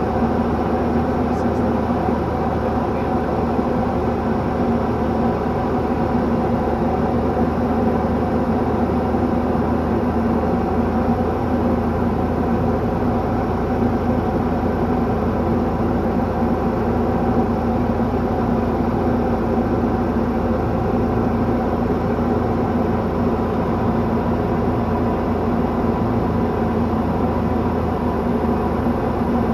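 Light sport plane's piston engine and propeller running steadily in cruise flight, a constant drone heard from inside the cockpit.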